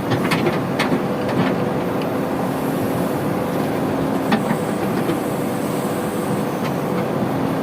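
Heavy diesel engine running steadily under load, with a few sharp knocks or clanks.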